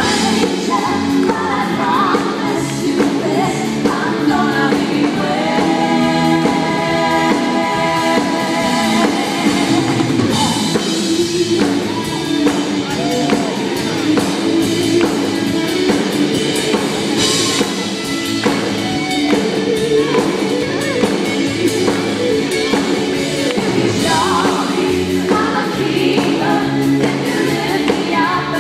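Live dance-pop song from a band with drums and bass guitar, a female lead singer and backing vocalists. It is heard from the audience in the hall.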